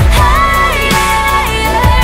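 Pop song playing: a melody that glides up and down between held notes over a steady beat, about one thump a second.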